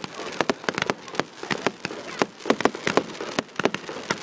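Fireworks display: aerial shells bursting, a fast, irregular run of bangs and crackles with no break.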